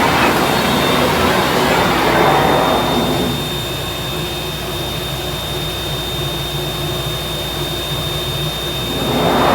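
CNC router running a cutting job: a steady high spindle whine over loud machine noise. The noise is louder for about the first three seconds, eases off, then rises again near the end.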